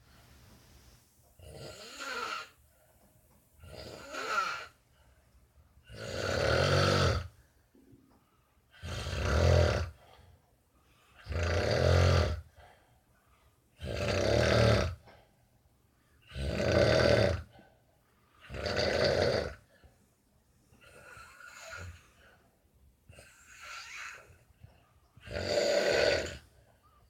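Heavy snoring: a sleeper snores in a steady rhythm, one long rasping snore about every two and a half seconds. The first couple of snores and two near the end are fainter than the rest.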